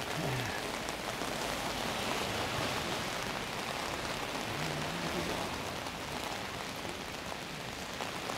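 Heavy rain falling steadily on an open umbrella overhead and on the wet street, an even hiss of drops without a break.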